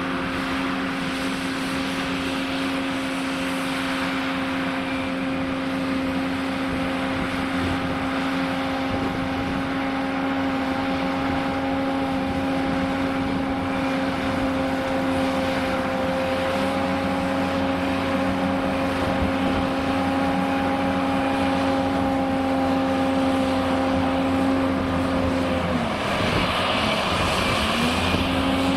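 Liebherr R980 SME front shovel's diesel engine and hydraulics running at steady high revs as it works. Near the end the engine pitch sags and recovers as the bucket digs into the face under load, with a rush of noise from the dig.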